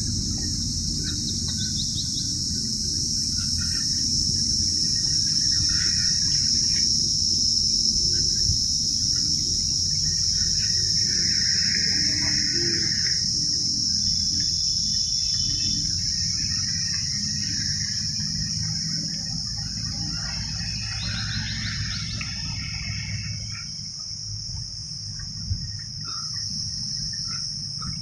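Steady, high-pitched drone of insects, with scattered bird chirps and a low rumble underneath.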